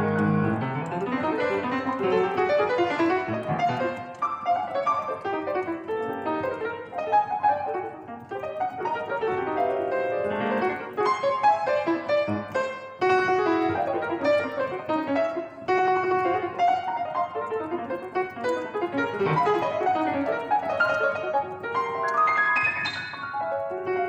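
Solo piano playing, a run of many notes moving through the middle and upper register, with a rising flurry of notes near the end.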